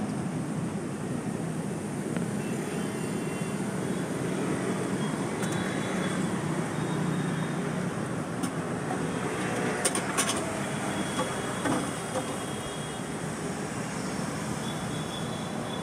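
Steady street traffic noise, with a few sharp clicks about ten seconds in.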